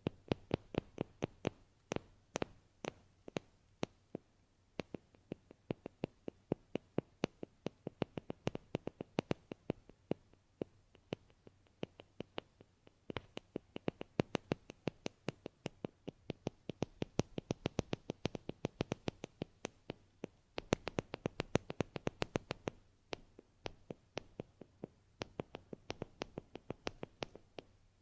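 ASMR tapping trigger: rapid light taps or clicks, about five a second, kept up with brief uneven gaps.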